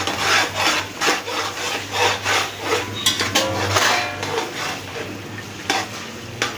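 Metal spoon stirring and scraping beef and masala around the bottom of a large metal cooking pot, in quick repeated strokes about two or three a second that grow quieter near the end. The scraping keeps the frying masala from sticking and burning on the pot's bottom.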